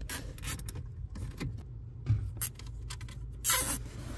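Plastic zip tie being threaded over a bar and pulled tight by hand: scattered clicks and rustles, with a louder zipping rasp near the end as the tie is drawn through its lock. A steady low hum sits underneath.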